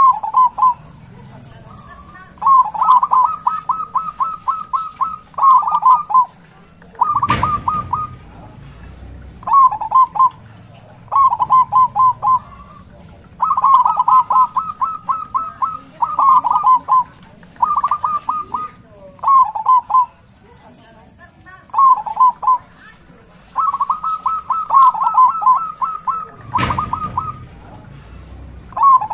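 Zebra dove (perkutut) singing its loud staccato cooing song, over and over, each phrase a quick run of repeated notes with short pauses between. Two sharp knocks cut in, one about seven seconds in and one near the end.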